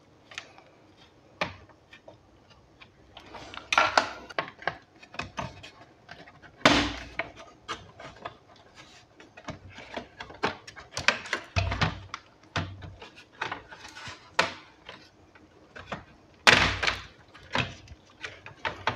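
The plastic top case of an HP ProBook 450 G1 laptop being pried apart with a plastic opening tool: irregular clicks and snaps as the case clips release, with rubbing and a few louder knocks as the shell is worked loose and handled.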